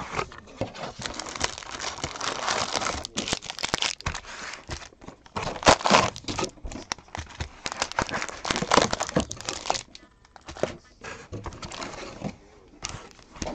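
Crinkly plastic wrapping being torn and crumpled off a sealed box of basketball cards as it is opened, in irregular crackling bursts.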